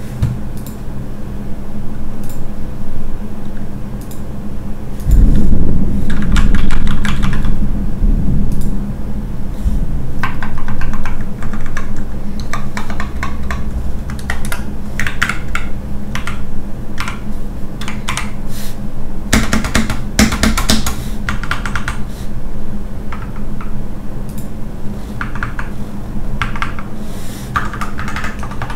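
Continuous typing on a GK61 60% mechanical keyboard whose space bar rattles: a dense, uneven run of key clicks and clacks. It gets heavier and louder about five seconds in and again around twenty seconds.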